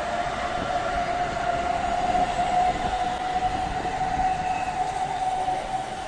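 Hamburg S-Bahn electric multiple unit moving along the platform track, its traction motors giving a steady high whine that creeps slightly upward in pitch as the train gathers speed, over a low rumble of wheels on rail.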